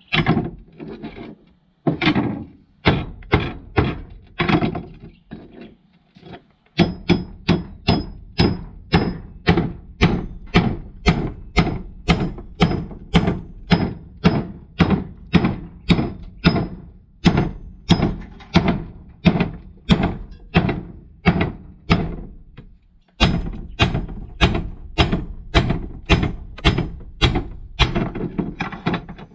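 Hammer blows on the back of a long steel blade held across an electric motor's copper-wound stator, chopping through the windings. Sharp metal-on-metal knocks at about two a second, a few scattered strikes and a short pause at first, and another brief pause about two thirds of the way in.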